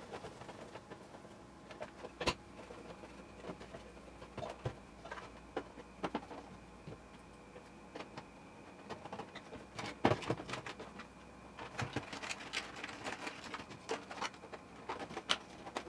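Scattered clicks and knocks of small plastic parts and a lamp housing being handled and fitted back together, loudest about ten seconds in, over a faint steady high whine.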